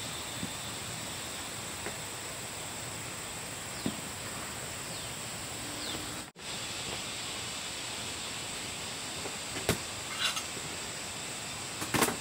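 Steady outdoor background hiss with a faint high-pitched drone, which briefly cuts out about six seconds in. A few sharp light knocks or clicks come in the second half, the loudest near the end.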